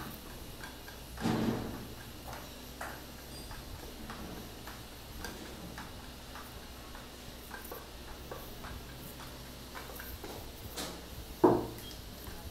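Long screwdriver turning the stock bolt deep inside a wooden rifle buttstock: faint, irregular small clicks and ticks, with a louder knock about a second in and another near the end.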